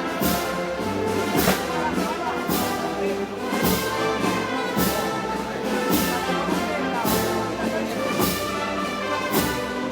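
Brass band playing Moros y Cristianos festival march music: held brass chords over a steady beat, with a cymbal and drum stroke about once a second.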